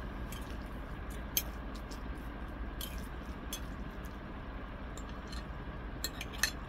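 A person eating with a fork from a plate: quiet chewing and a few short, sharp clicks of cutlery against the plate, over a steady low room hum.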